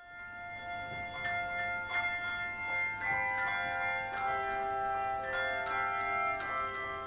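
Instrumental music of chiming bell tones playing a slow tune. Each note is struck and left ringing on into the next.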